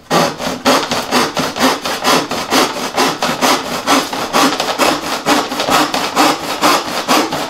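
Large handsaw cutting through a thin wooden panel in fast back-and-forth strokes, about five a second, starting abruptly.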